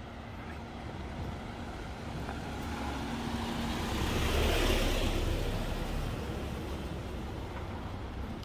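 A vehicle driving past close by on a street, its engine and tyre noise swelling to a peak about halfway through and then fading away.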